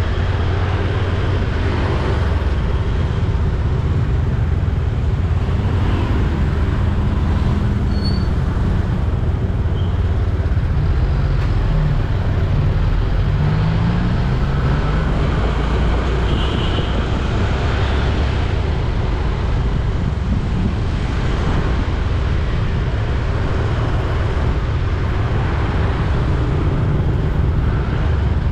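Steady, loud rumble of vehicle and road noise from travelling along a busy road in traffic, heaviest in the low end.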